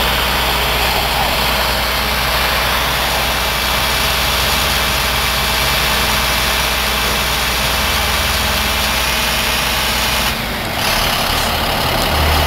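Boom truck's engine idling steadily, a low hum under a constant hiss; the sound dips briefly near the end.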